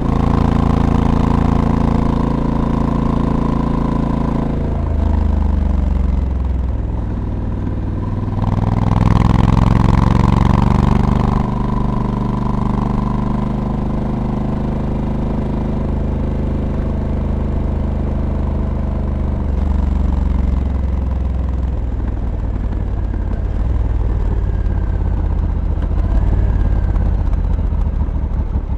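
Honda Africa Twin's 1084 cc parallel-twin engine running under way. Its note drops off about five seconds in, climbs under acceleration with a rush of wind around nine to eleven seconds, then settles into a steady run with small changes in pitch.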